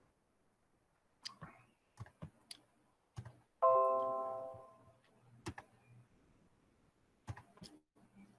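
Scattered sharp clicks and taps, with one ringing, bell-like tone about three and a half seconds in that dies away over about a second.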